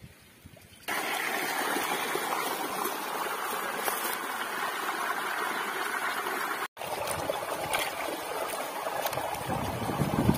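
Steady rush of running water from a stream or channel, coming in suddenly about a second in after near quiet and dropping out for an instant about two-thirds of the way through.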